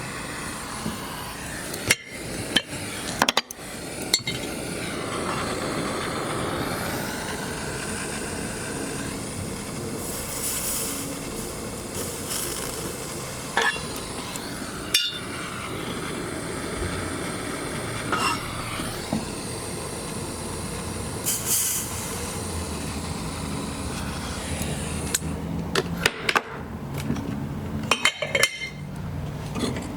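Small hammer tapping metal at the goldsmith's bench: sharp single taps spaced a second or more apart, with a quicker run of taps near the end, over a steady background noise.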